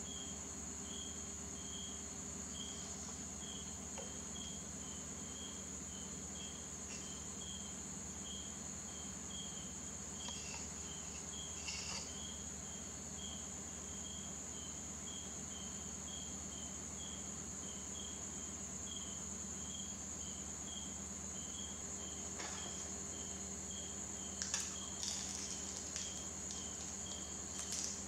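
Steady insect chirping, cricket-like: a short chirp repeating evenly a little under twice a second over a constant high buzz, with a few soft clicks and crackles near the end.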